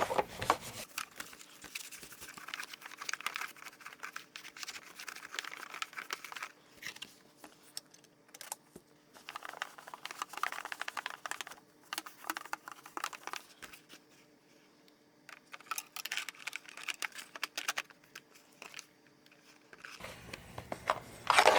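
Cloth rubbing over the glass of a welding-helmet lens cartridge, wiping it clean after glass cleaner, in uneven bouts of rubbing a second or two long with small handling clicks between them.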